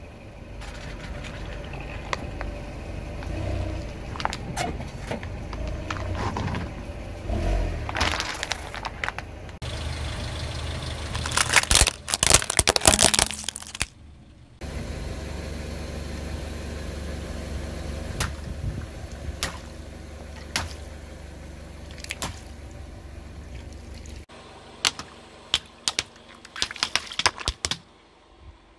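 A car's tyre rolling slowly over things and crushing them, the engine running low underneath: a plastic bottle packed with water beads crackling and crunching, then plastic toy cars breaking with sharp cracks, and later water beads popping and snapping under the wheel.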